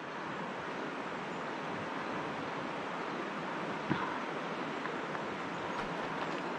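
River water rushing steadily, with one brief click about four seconds in.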